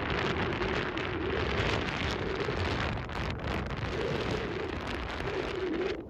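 Wind buffeting the microphone in a steady rushing noise, over choppy water lapping in a tidal channel.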